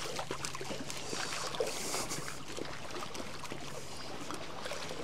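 Sea water lapping and trickling among the rocks of a sandstone sea cave as the tide comes in, with scattered light clicks and a faint steady low hum.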